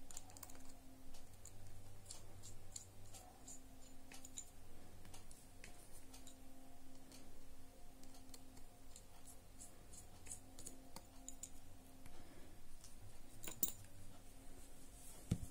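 Faint, scattered clicks and light scraping of a TX2 precision screwdriver turning small screws out of a smartphone's metal bottom edge, with a sharper click near the end.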